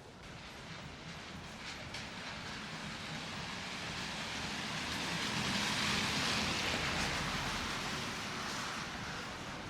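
A vehicle passing by: a steady rush of road noise that builds, peaks about six seconds in, then fades.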